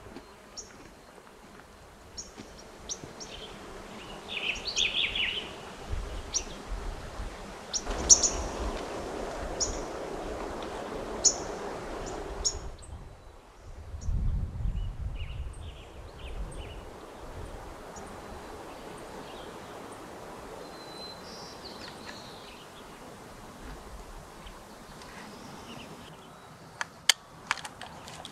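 Outdoor ambience of small birds chirping and calling here and there, mostly in the first half, over a low rumble that comes and goes. A few sharp clicks come near the end.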